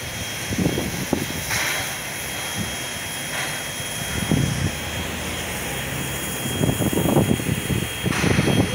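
NSW 59 class 2-8-2 steam locomotive 5917 working a passenger train under steam, its exhaust and running gear making a steady heavy rumble with irregular beats. The beats grow busier near the end as it nears.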